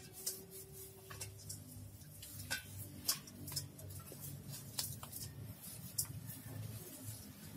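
Hands working eels in ash inside a stainless steel bowl: irregular sharp clicks and taps against the metal, with soft scraping, over a faint low steady hum.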